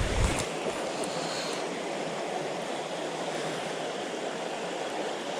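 Steady rush of a small stream's running water, with a brief low bump in the first half second.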